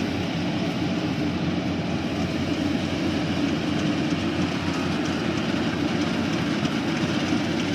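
Yanmar YH850 rice combine harvester running under load while cutting and threshing a rice crop: its diesel engine and machinery make a steady, unbroken drone.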